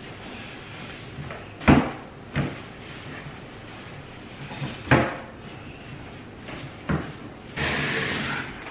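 Knocks from a small wooden dresser being handled, drawer and wooden body bumping: four sharp knocks, the loudest about two seconds in. Near the end comes about a second of rough, rasping noise.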